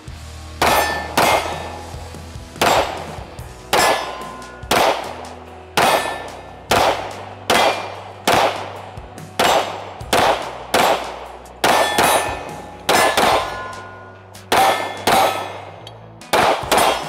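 9mm Springfield Armory Echelon pistol fired in a long string of about twenty shots, roughly one a second, some in quick pairs. Each sharp report is followed by a short ringing tail.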